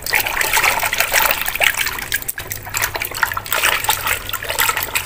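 Water sloshing and splashing in a plastic bucket as a hand scrubs a toy underwater, in quick irregular splashes.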